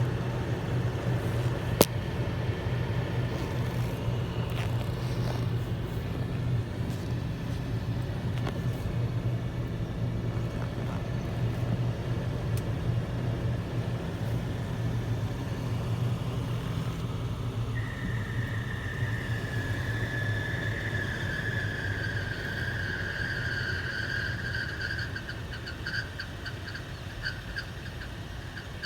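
Lexus GX470's 2UZ-FE V8 running with a steady low hum. About two-thirds of the way in, a high squeal starts from the viscous fan clutch, slides slightly lower, and breaks into quick chirps near the end as the engine hum fades. The squeak and grinding are the sign of a failing fan clutch.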